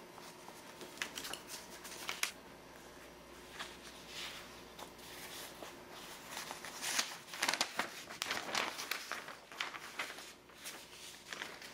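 Stiff old paper rustling and crinkling as greeting cards and envelopes are handled and a large folded newspaper page is pulled out and opened. Irregular crackles come in small clusters, with a louder, denser run of crinkling a little past the middle as the newspaper is unfolded.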